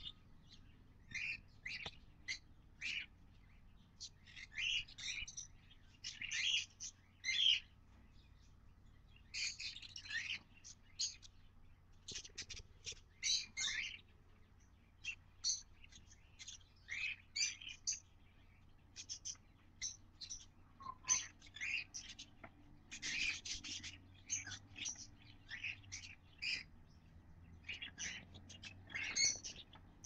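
Budgie and cockatiel nestlings cheeping inside a wooden nest box: clusters of short, high chirps repeating every second or so, the sound of chicks begging to be fed.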